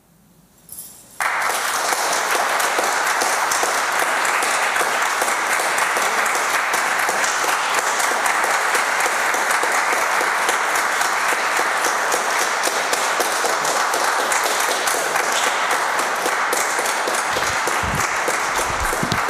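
Audience applauding: after about a second of near silence, applause breaks out suddenly and carries on steadily.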